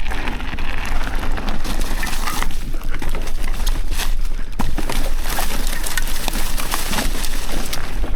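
Mountain bike riding down a loose, rocky dirt trail: tyres crunching over dirt and stones and the bike clattering over bumps, with wind rushing over the microphone.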